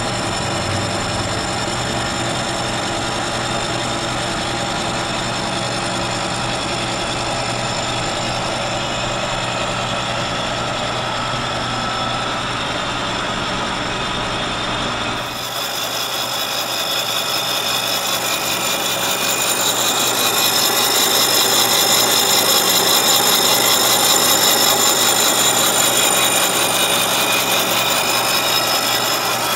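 Kearney & Trecker milling machine driving a carbide-insert face mill across a cast iron straight edge: a steady machine whine with several held tones under the noise of the cut. About halfway through the sound shifts abruptly, the low hum dropping out and the higher tones coming up, and it grows somewhat louder toward the end.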